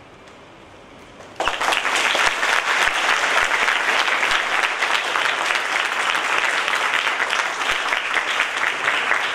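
Audience applauding. It breaks out suddenly about a second and a half in, after a short hush, and goes on as dense, even clapping.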